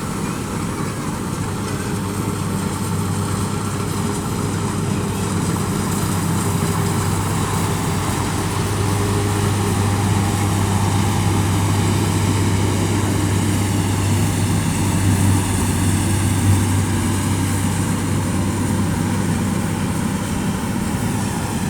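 Rice combine harvester's engine running steadily, a low continuous drone that grows slightly louder over the first several seconds.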